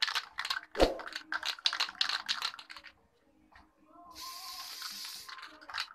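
Aerosol spray paint can of metallic black being shaken, its mixing ball rattling quickly for about three seconds. After a short pause comes a steady hiss of spraying, lasting under two seconds, near the end.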